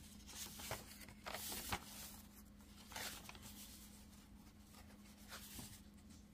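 Pages of a handmade paper junk journal being turned and flipped, a few soft paper swishes and rustles, the loudest about a second and a half in, over a faint steady hum.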